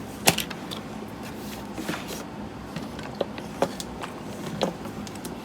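Scattered light clicks and taps, about six spread irregularly, the sharpest near the start, as toys and their packaging are handled.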